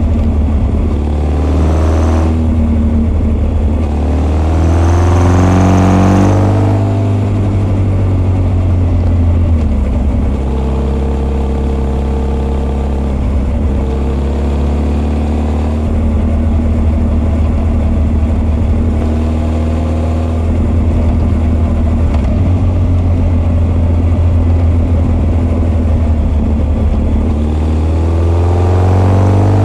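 Honda CB1300 SF's inline-four, breathing through Keihin FCR41 carburetors into an r's gear Wyvern full exhaust, heard from on the bike. It revs up, dips at a gear change about two seconds in, and pulls up again to about six seconds. It then settles to a steady cruise and climbs in revs once more near the end.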